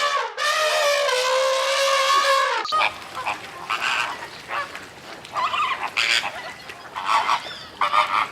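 Goose honking: one long drawn-out honk, then a run of short honks.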